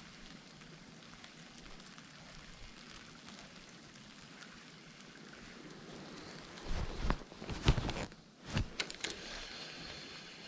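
Faint, steady hiss of wind and falling snow. About six and a half seconds in come several loud, low rumbles and knocks, like gusts buffeting the microphone, which die down again near the end.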